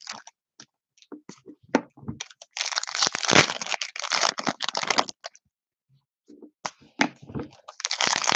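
Foil wrapper of a trading-card pack being torn open and crinkled by hand, in two bursts of crackling, one about two and a half seconds in and another near the end, with light crinkles between.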